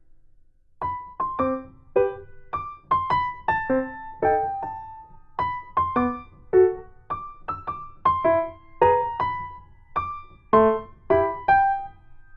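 Soft background piano music, single notes and small chords played at an unhurried pace after a brief quiet start.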